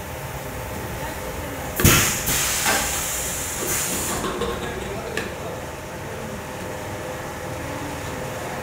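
Pneumatic PET bottle blowing machine cycling: a sharp clack about two seconds in, followed by bursts of compressed-air hiss and another click around five seconds, over a steady machine hum.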